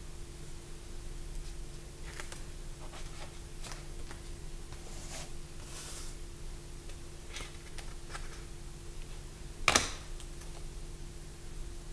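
Sketchbook pages being handled and turned by hand: faint paper rustles and taps, with one louder page flip near the end. A steady low hum runs underneath.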